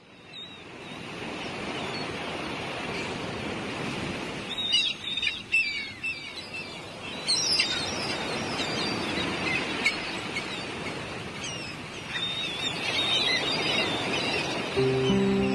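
Birds chirping and calling in several short bursts over a steady background rush that fades in at the start. Music comes in just before the end.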